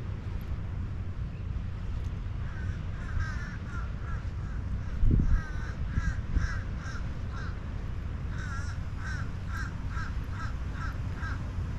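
A bird calling in two runs of short repeated calls, about two to three a second, over a steady low rumble. A brief low thump comes about five seconds in.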